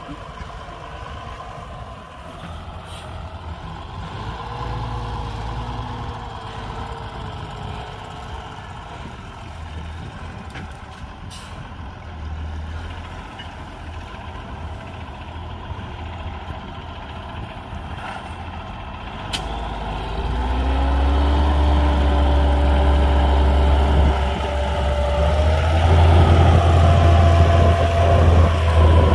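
Lamborghini R6.130 tractor's diesel engine working under load while pulling a plough, passing by. It is quieter at first and gets much louder about two-thirds of the way through as the tractor comes close, with the engine note rising twice near the end.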